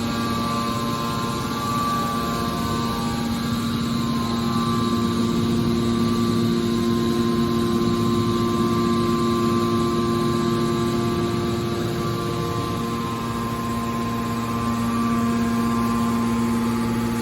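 Hydraulic metal baler's electric motor and hydraulic pump running with a steady hum and several constant tones.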